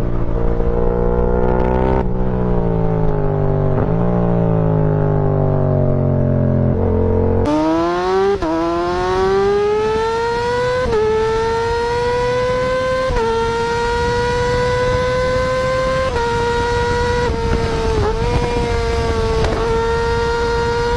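Yamaha R-series sport motorcycle engines at speed. First a deeper engine note sinks in pitch. Then, after an abrupt cut about seven seconds in, a high-pitched engine revs up through the gears, dipping briefly at each of about six shifts.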